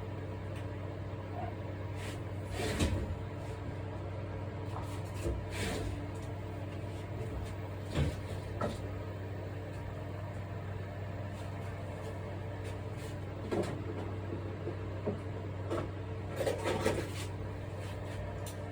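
Scattered light knocks and clicks from handling small parts and tools on a workbench, over a steady low hum.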